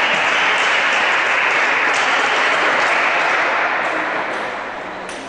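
Spectators applauding, a steady clapping that dies away over the last second or two.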